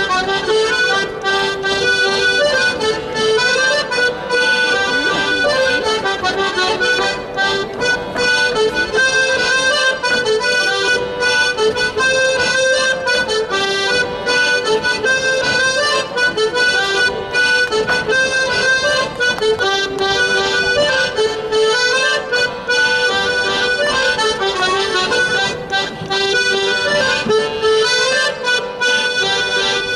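Live traditional Breton dance music led by an accordion, playing a melody that keeps returning to the same phrase without a break.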